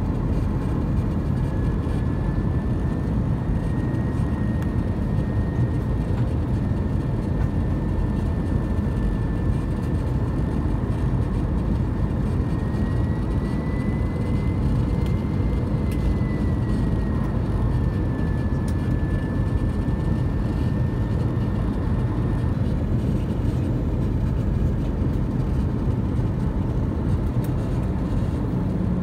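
Airbus A319 cabin noise on approach: a steady roar of airflow and engines, with a thin, high engine whine that rises and falls gently and fades out about three-quarters of the way through.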